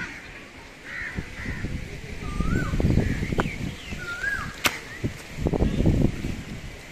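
Gusty wind buffeting the microphone in two strong surges, with crows cawing and a bird giving two short rising-and-falling whistles. A single sharp click comes about two-thirds of the way through.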